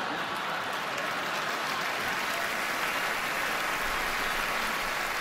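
A large audience applauding: dense, steady clapping with no break.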